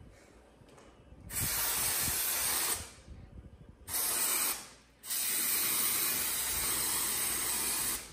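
Aerosol hair-colour spray can hissing as it is sprayed onto hair, in three bursts: one of about a second and a half, a short one, then a long one of about three seconds.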